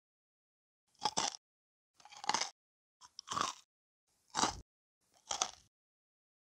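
Five crunchy bites into a cookie, about one a second, as a biting sound effect.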